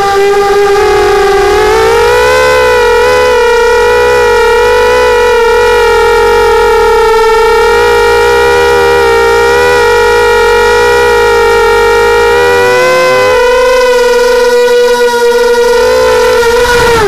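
Mini 250 quadcopter's brushless motors and propellers whining loudly at a steady high pitch, heard up close through the onboard camera. The pitch rises about two seconds in, then dips briefly and recovers a little past the middle.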